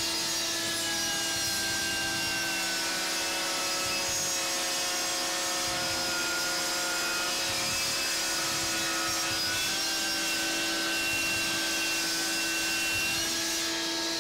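Metabo HPT 36V MultiVolt brushless 10-inch table saw, running on its 36V battery, ripping a pine 2x4 lengthwise along the fence. A steady motor whine runs over the hiss of the blade cutting wood. The whine drops slightly in pitch a couple of seconds in as the blade takes the load, then rises again about ten seconds in as the cut finishes.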